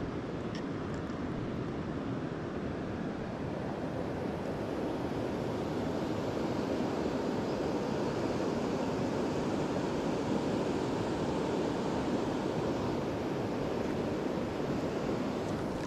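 Steady rushing outdoor noise, growing a little louder about halfway through.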